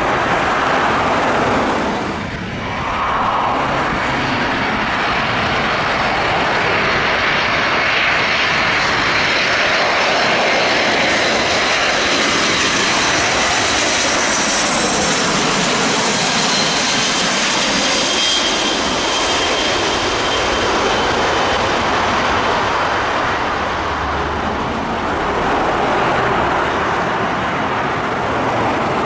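Four turbofan engines of a Boeing C-17 Globemaster III running as the jet flies low overhead on landing: a loud, steady jet rush with a faint high whine in the middle of the pass.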